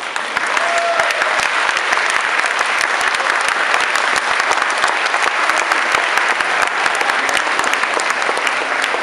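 Audience applauding steadily with many hands clapping.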